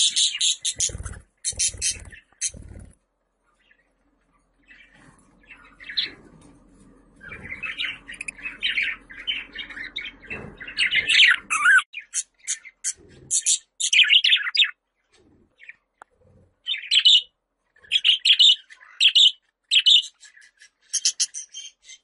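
Pet budgerigars chirping and warbling in irregular bursts, with a pause of about a second and a half about three seconds in.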